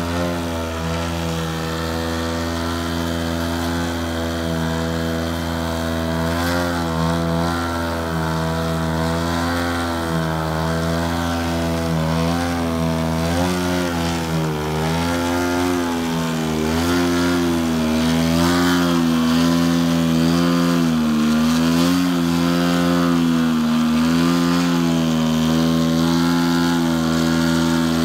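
Engine and propeller of a 107-inch Extra 330SC giant-scale RC aerobatic plane hovering nose-up in a prop hang. The engine note rises and falls in small, constant swells as the throttle is worked to hold the hover, and grows a little louder in the second half.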